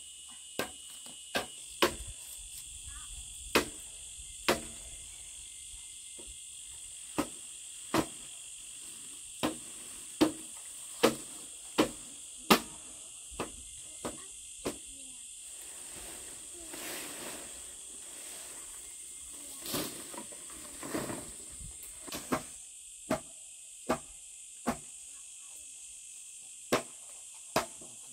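Sharp, irregular chopping knocks, roughly one every second or so, over a steady high chirring of insects. A softer rustle of dry leaves comes twice in the second half.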